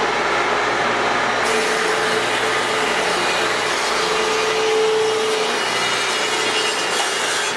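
16-inch four-post thickness planer with a spiral cutter head of carbide inserts, running and planing a curly maple board; the cutting noise turns brighter about a second and a half in as the board is fed through.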